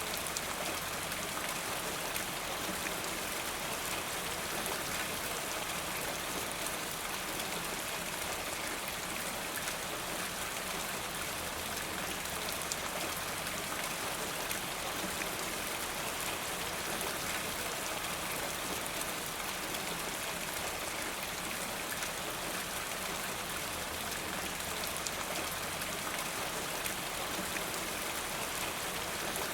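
Steady rain with close raindrops pattering and water running from a rain gutter, an even unbroken wash with many small drip ticks.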